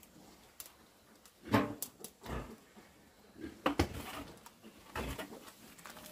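A few short animal calls at irregular intervals, the loudest about a second and a half in.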